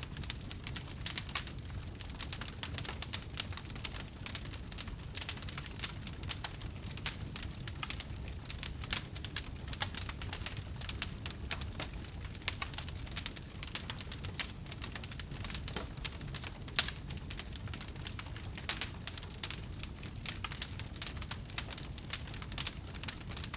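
Wood fire burning, with dense irregular crackling and popping over a low steady rumble of the flames.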